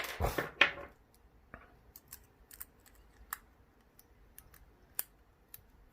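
A lock pick probing along the pin stacks inside a padlock's keyway: a sparse, irregular run of faint, light metallic clicks as it steps over the pins to count them. A louder handling sound comes first.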